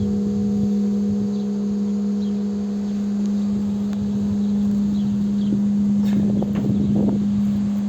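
Large church bell ringing on after its last strike: its low hum note holds steady while its higher overtones fade away over the first few seconds.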